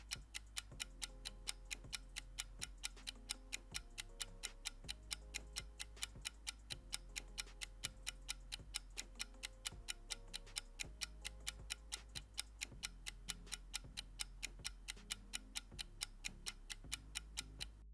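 Countdown-timer clock ticking sound effect, a fast, even tick-tock, over soft background music with low bass notes. The ticking stops at the very end.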